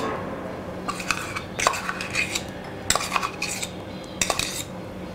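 A metal spoon scraping and knocking against a small steel bowl as green paan paste is scraped out into a glass bowl of cream: a run of short clinks and scrapes.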